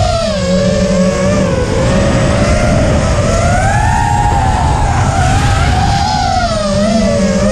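Eachine Falcon 250 racing quadcopter's brushless motors and propellers whining as it flies. The pitch rises and falls with the throttle: it dips about a second and a half in, climbs to its highest about four seconds in, and dips again near the end. A heavy low rumble runs underneath.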